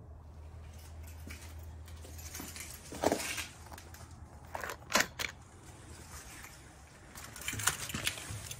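Handling of metal unicycle parts: a few sharp knocks and clinks, the loudest about three and five seconds in, with lighter clicks near the end.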